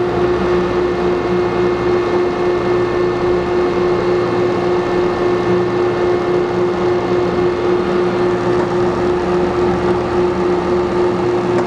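1981 Landis 1R universal cylindrical grinder running, its motors and hydraulic drive giving a steady hum with one constant whining tone while the pick feed works.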